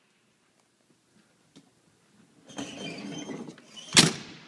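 Ambulance equipment compartment door being swung shut: about a second of squeaky scraping, then a single hard latching slam about four seconds in, the loudest sound.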